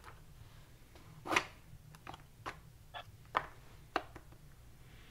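2017 Topps baseball cards being thumbed through by hand in their cardboard box: a handful of short, soft clicks and taps of card stock, the loudest about a second and a half in.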